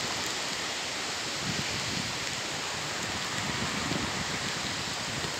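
Steady hiss of sleet, snow mixed with freezing rain, falling outdoors, with an uneven low rumble underneath.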